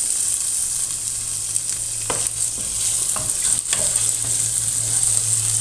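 Chopped onion and garlic sizzling in hot oil in a pan, where chicken was just browned. There are a few sharp clicks of a utensil or pieces against the pan, around two and three and a half seconds in, and a steady low hum under it.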